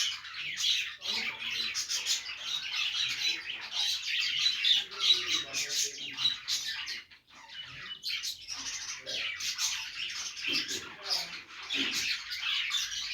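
Budgerigars chattering and warbling: a dense run of quick, high chirps and squawks, with a short lull about seven seconds in.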